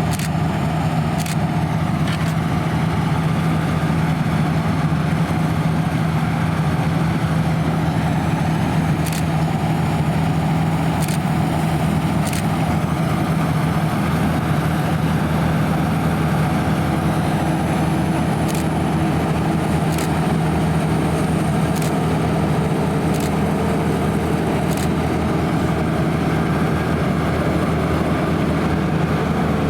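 Claas Lexion 580 Terra-Trac combine harvester running steadily under load while combining barley, a constant low hum of engine and threshing machinery, with a few faint ticks scattered through it.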